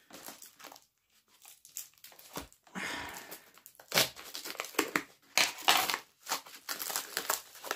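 A parcel's packaging being torn and crumpled open by hand: irregular crinkling and tearing rustles with sharp crackles, starting after a near-quiet first couple of seconds.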